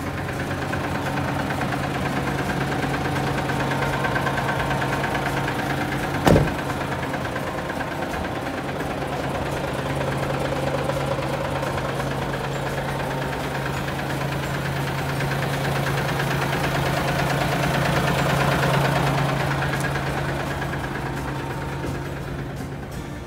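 Hino Profia heavy truck's diesel engine idling steadily, swelling and easing slightly in level. A single sharp knock sounds about six seconds in.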